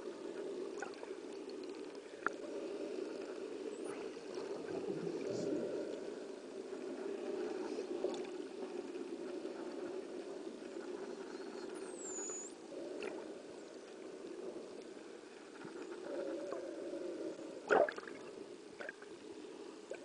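Underwater sea ambience picked up by a camera below the surface: a steady low rush of water with scattered clicks and one sharp knock near the end. A short, high whistle that dips and rises again about twelve seconds in, from the dolphins feeding on the mackerel ball.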